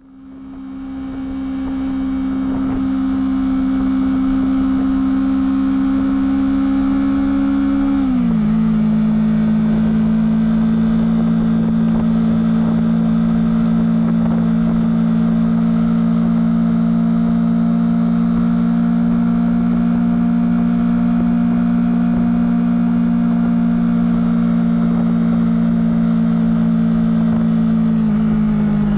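Honda CBR250RR engine through its stock exhaust, running at steady high revs. The pitch drops a step about eight seconds in, holds steady, and drops again near the end.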